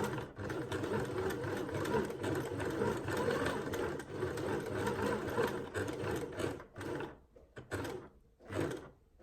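Waltsons Celestial Cub 4 sewing machine running fast, sewing the zigzag side of a buttonhole in rapid, even stitches. About seven seconds in it slows into a few short bursts with pauses between.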